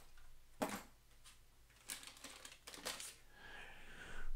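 Plastic fishing-lure packages being handled and set down on a tabletop: a light knock just over half a second in, then a run of small clicks and crinkles.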